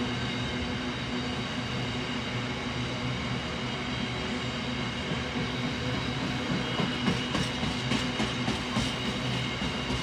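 Wagons of a container freight train rolling past: a continuous rumble with a few steady high tones, and sharper wheel clacks over rail joints from about seven seconds in.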